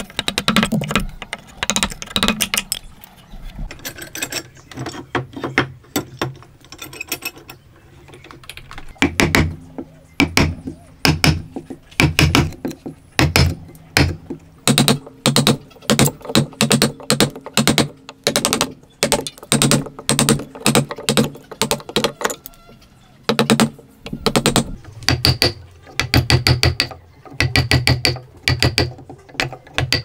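Chisel being driven into a block of wood by repeated blows, each a sharp strike with a brief ring. The blows come in runs of about two or three a second; they are sparse and lighter for several seconds near the start.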